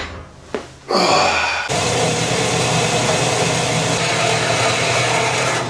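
Horizontal metal-cutting bandsaw starting abruptly about a second and a half in, then running steadily with an even hiss over a low hum as it cuts steel stock.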